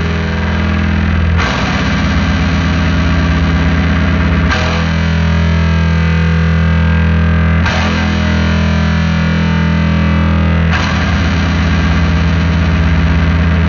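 Metal music: heavily distorted electric guitar playing a slow riff of sustained low chords that change about every three seconds.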